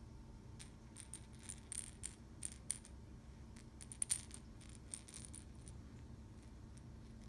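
Small bird-shaped nesting-doll toy rattling and clicking as a cat bats and pounces on it: a scatter of sharp clicks over several seconds, the loudest pair about four seconds in, then it goes still.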